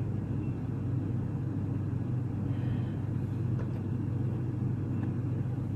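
Steady low background hum with no speech.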